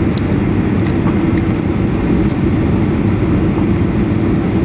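Steady, loud cabin noise of a jet airliner in flight, engines and rushing airflow heard from a window seat, with the flaps extended at low altitude.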